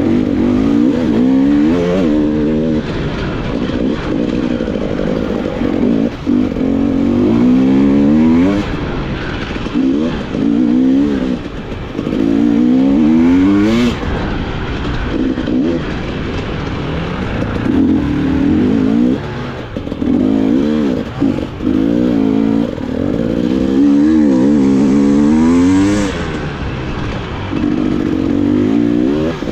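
Off-road dirt bike engine on a hare scramble course, revving up and dropping back again and again as the rider works the throttle and gears over rough ground, with an occasional knock.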